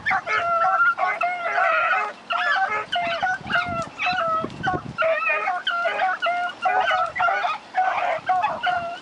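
A pack of rabbit hounds giving tongue while running a rabbit: quick, short baying calls from several dogs overlapping one another, with no let-up.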